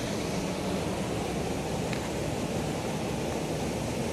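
Steady rushing of a waterfall and the river below it, an even noise with no break.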